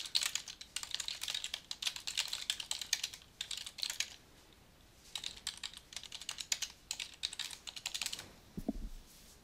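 Typing on a computer keyboard: rapid key clicks for about four seconds, a short pause, then a second run of typing. A soft dull thump near the end.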